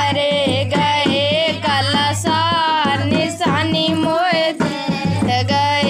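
Indian folk song: singing with a wavering high melody over dholak drum accompaniment, keeping a steady pulsing beat.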